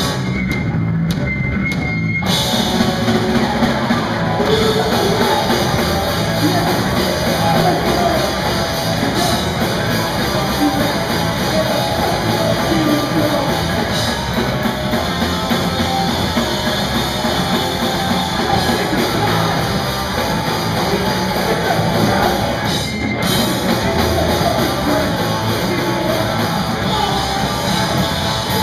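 Rock band playing live: vocals over electric guitars, bass and drum kit. After a sparse opening the full band comes in about two seconds in, with a brief break about 23 seconds in.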